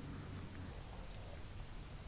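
Quiet close-miked eating sounds: fingers squishing and gathering fried rice on a banana leaf, with faint chewing and a few small ticks.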